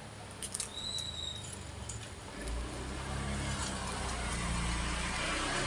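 A motor vehicle's engine running and growing louder from about halfway through, its low rumble becoming the loudest sound near the end. A few faint clicks of a knife against a cutting board come before it.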